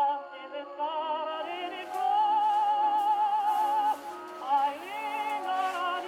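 Background music: an early gramophone-era recording of a singer with a wide vibrato, holding one long note in the middle, thin and narrow in tone, with faint record-surface crackle.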